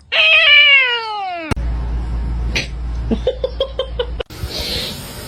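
A cat's long meow, falling steadily in pitch over about a second and a half, then a quick run of about seven short calls in one second.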